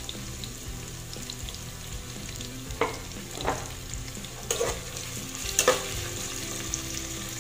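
Sliced red chilies, onion, garlic and ginger sizzling in hot oil in a stainless steel pot. A metal ladle stirs them, with a few sharp knocks against the pot a few seconds in.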